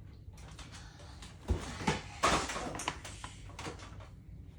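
Toys and objects being handled and moved about: a few knocks and a short rustling scrape about halfway through.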